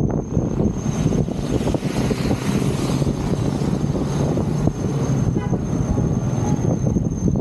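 Motor traffic on a busy road: a steady, loud rumble of engines and tyres going past close by. There is a brief higher-pitched tone about five seconds in.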